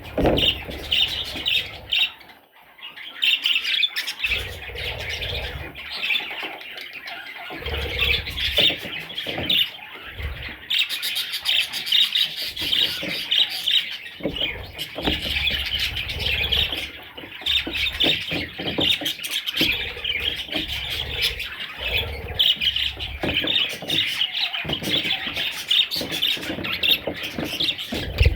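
A flock of budgerigars chattering and squawking continuously, many short overlapping calls at once.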